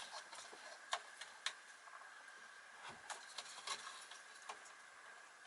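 Faint clicks and small taps of hands and tools working at the motor's cable connectors inside a vacuum cleaner, with two sharper clicks about a second and a second and a half in and a scatter of lighter ticks later.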